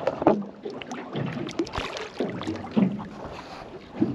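Water slapping and sloshing against the hull of a small fishing boat at sea, in irregular splashes.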